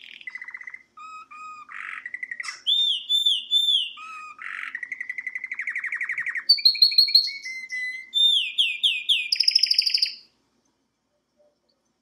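Canary singing a long varied song: runs of fast repeated trills and rising and falling whistled notes, each phrase repeated several times before switching to the next, stopping suddenly about ten seconds in.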